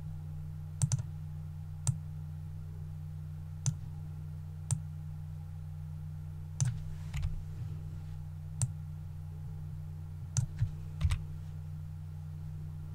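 Computer mouse and keyboard clicks, about a dozen sharp clicks at irregular intervals, some in quick pairs, over a steady low electrical hum.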